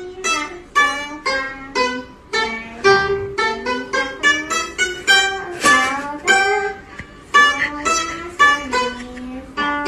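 Music: a melody played on a plucked string instrument, a quick run of separate picked notes.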